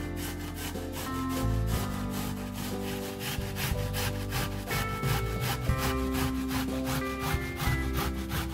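Quick, even rasping strokes of food being worked by hand in the kitchen, about five a second, over soft background music.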